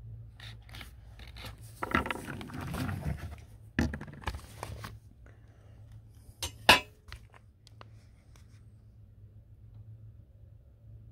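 Scraping and rubbing of cloth against the camera, in several bouts over the first five seconds, then two sharp clicks close together about six and a half seconds in, the second the loudest sound. A low steady hum runs beneath.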